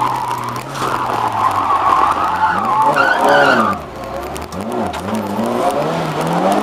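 Classic Lada's 1.3-litre four-cylinder engine, heard from inside the cabin, revved hard through a slalom, with tyres squealing in the turns. The revs climb to a peak about three seconds in, drop off sharply just before four seconds, then rise and fall in short bursts and climb again.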